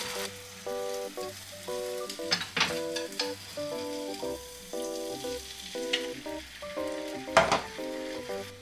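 Beaten egg sizzling in a hot rectangular tamagoyaki pan while wooden chopsticks stir and roll it, with a few sharp clicks of the chopsticks against the pan, the loudest about seven seconds in. Soft background music plays underneath.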